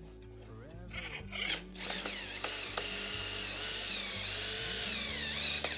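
Power drill running in one long stretch from about two seconds in, its whine wavering up and down in pitch, over background music. A few light clicks come before it.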